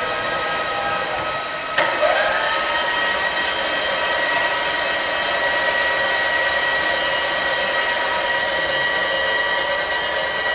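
Milling-machine table power feed motor and gearing running with a steady whine. A click about two seconds in, then the pitch rises as it speeds up. It shuts off at the very end.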